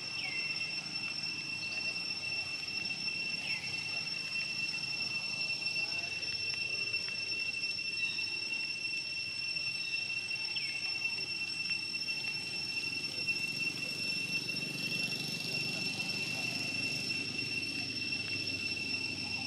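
A steady, high-pitched insect drone holds one unbroken tone throughout, over a low background hum. Three short falling chirps break in, the first just after the start, one about three and a half seconds in and one about ten and a half seconds in.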